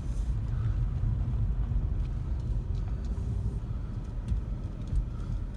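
Steady low rumble of a car driving slowly, heard from inside the cabin, with a few faint clicks.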